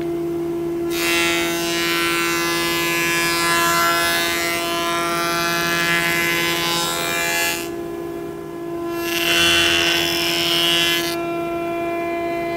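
Minimax FS41 Elite S combination jointer/planer running in jointing mode with a steady whine, while short boards are face-jointed over the cutterhead. A long pass of cutting noise is followed by a shorter pass about nine seconds in, and a third pass begins near the end.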